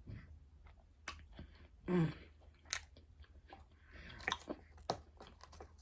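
Close-up chewing and biting of a hamburger and fries, with scattered crunches and wet mouth clicks.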